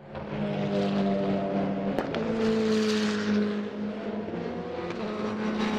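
A motor engine runs at a fairly steady pitch, swelling about three seconds in as it passes, with a single sharp click near two seconds.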